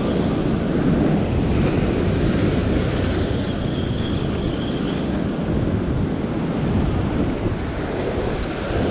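Heavy sea surf surging and breaking over a rock ledge, with wind buffeting the microphone.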